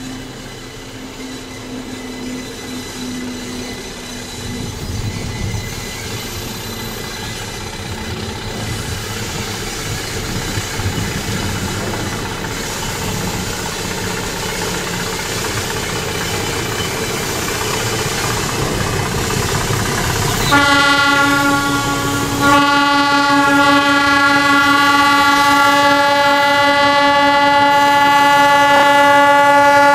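Metre-gauge ALCo diesel locomotive A.9101, leading a double-headed train, approaching with its engine and running noise growing steadily louder. About twenty seconds in it sounds its multi-tone horn: a short blast, a brief break, then a long blast held to the end.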